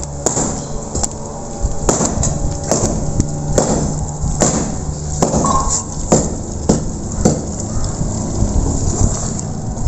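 Large knives cutting raw meat into small pieces on a tarp, with irregular knocks and scrapes of the blades every half second or so, over a steady low rumble.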